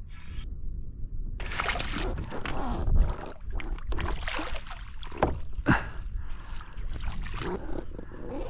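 A hooked fish splashing at the surface beside a kayak and being scooped into a landing net, with water sloshing and irregular knocks of the net and gear against the kayak's hull.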